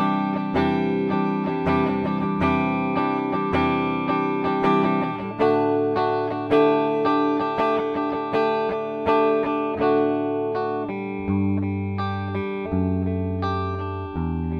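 Gibson SG Standard electric guitar played through a clean tone with both pickups selected: chords struck about once a second and left to ring, moving through a progression.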